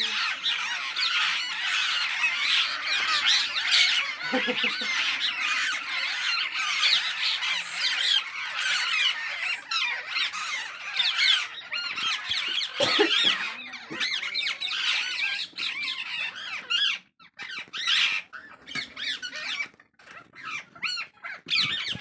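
A flock of rose-ringed parakeets calling: a dense chorus of shrill squawks and chatter that thins to scattered calls with short gaps in the last few seconds.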